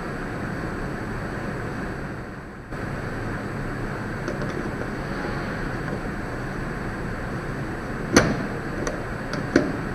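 Steady background hiss, with two short sharp clicks near the end as the Canon EOS 200D camera body and lens are handled.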